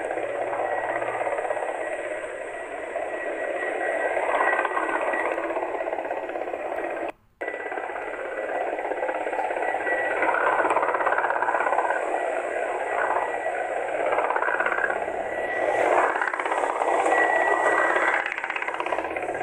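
Navy helicopter flying at a distance, heard through a phone video as a steady rushing noise with a thin steady whistle. The sound drops out for a moment about seven seconds in.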